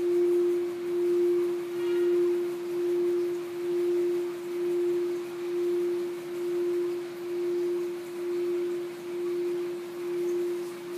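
Gold singing bowl ringing with one steady, pure tone that swells and fades about once a second.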